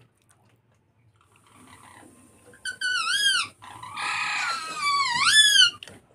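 An animal's high whining call, heard twice, each dipping in pitch and then rising sharply, with a breathy rasp between the two calls.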